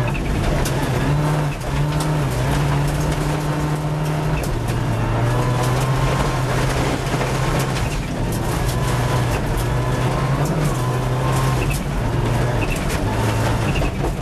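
Rally car engine running hard, heard inside the cabin, its pitch stepping up and down several times with gear changes and lifts of the throttle. Loose gravel ticks and clatters against the car's underside throughout.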